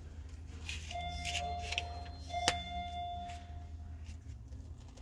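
Two steady electronic tones, each a little over a second long, the second starting just before a single sharp click.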